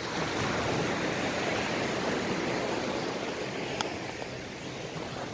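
Surf washing up a sandy beach: a broad rush of water that swells at the start and slowly fades as the wave runs back out.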